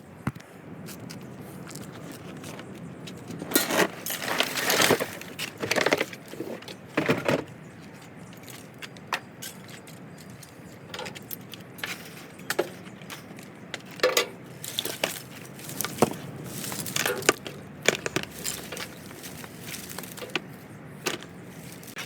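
Scrap electrical wire being sorted by hand, number 2 wire pulled from Romex and tossed into bins: irregular metallic clinking and rustling clatter in bursts.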